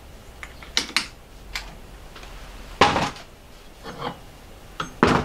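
Metal parts of an old lathe cross slide and a metal block being handled and shifted against each other: a few scattered sharp clicks and knocks, the loudest about three seconds in and another near the end.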